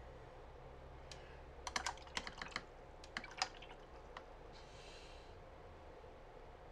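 Faint, irregular light clicks and taps, a quick run of them about two seconds in and a few more soon after, with a brief soft rustle about five seconds in.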